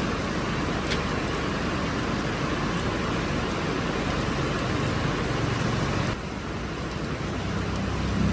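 Heavy rain pouring down as a steady hiss, easing abruptly about six seconds in.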